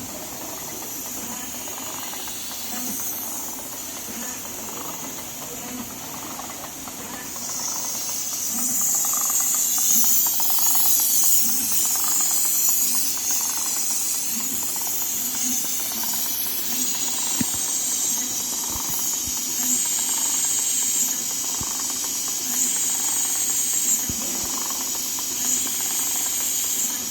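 360° rotary head leather sewing machine running on a test, under a loud steady hiss that grows louder about eight seconds in, with a faint regular knock about once every second and a half.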